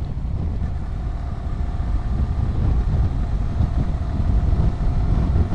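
Yamaha R15M's 155 cc single-cylinder engine running steadily while riding, under heavy wind rumble on the rider's microphone, getting a little louder toward the end.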